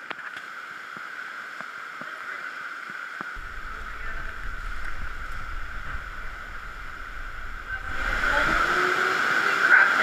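Shallow cave stream running steadily, a constant watery rush. A low rumble joins from about three seconds in, and the water grows louder about eight seconds in.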